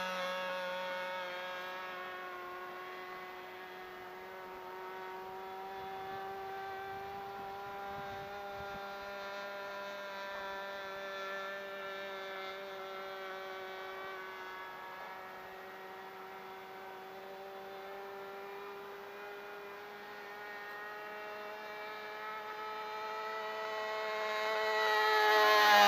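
Super Tigre .51 two-stroke glow engine with an 11-6 propeller on a radio-controlled Cessna L-19 Bird Dog model, running steadily in flight. Its buzz fades as the plane flies off, then grows loud near the end as it comes back for a close pass.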